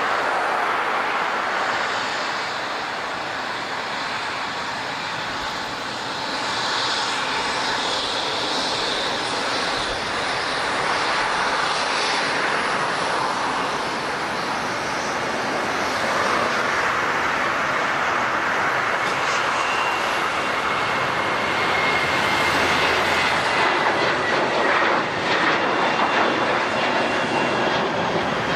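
Jet airliner engines running: a steady, wide rush of noise, with a faint high tone gliding slowly down late on.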